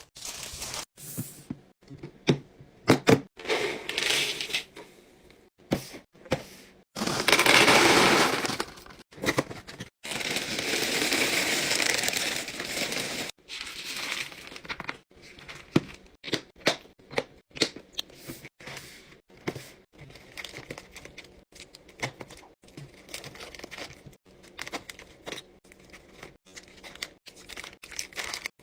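Restock handling sounds: packaging crinkling and tearing, with many sharp clicks and taps of containers and lids, and two longer stretches of steady rushing noise, one about seven seconds in and one about ten seconds in.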